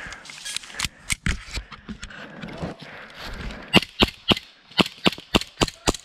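Airsoft replicas firing single shots: a few scattered sharp cracks in the first second or so, then a quick string of about eight shots, three or four a second, over the last two seconds.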